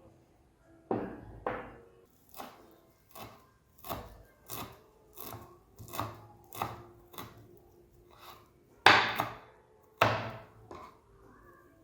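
Knife chopping on a wooden cutting board: a run of separate strokes, roughly two a second, with a few harder chops about a second in and again near the end.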